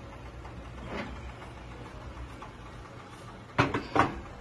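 Metal loaf pan knocking down onto the gas stove's burner grate: two loud clattering knocks close together about three and a half seconds in, after a softer knock about a second in, over a low steady hum.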